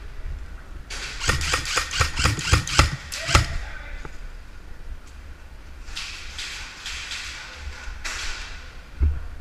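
VFC HK416 airsoft electric rifle firing a rapid string of about a dozen sharp shots, roughly five a second, starting about a second in and lasting two and a half seconds. A single thump comes near the end.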